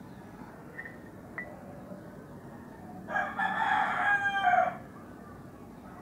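A single loud, drawn-out animal call, starting about three seconds in and lasting about a second and a half.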